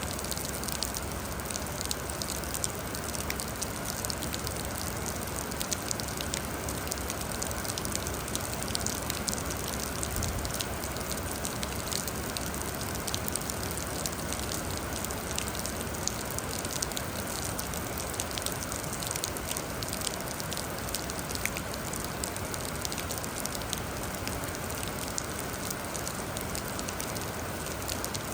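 Steady rain: an even hiss of rainfall with many sharp little drop ticks on a surface.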